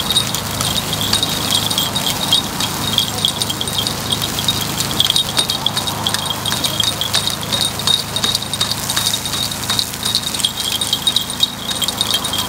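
Metal takoyaki picks clicking and scraping against the takoyaki griddle as the balls are turned: rapid, irregular light metallic clicks with a ringing tone, over a steady low hum.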